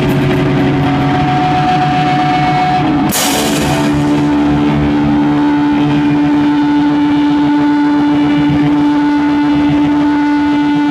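Live crust punk band playing loud distorted electric guitar through stacked amplifiers, with drums. A cymbal crash comes about three seconds in, then a single guitar tone is held and rings steadily from the amp to the end.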